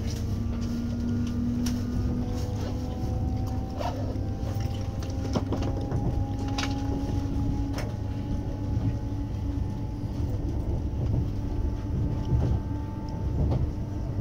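Cabin noise inside a Fuxing high-speed train moving off from a station: a steady low rumble with a faint whine that rises slowly in pitch as the train gathers speed, and occasional sharp clicks.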